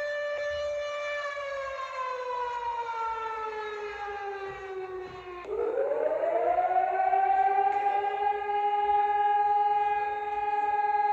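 Emergency alert siren alarm tones. A held siren tone slowly falls in pitch and breaks off about halfway through. A second siren then winds up in pitch and settles into a steady two-note tone.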